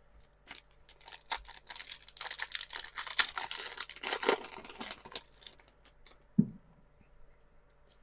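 Foil Pokémon TCG booster pack wrapper being torn open and crinkled: a run of rapid tearing and crackling lasting about four seconds, starting about a second in.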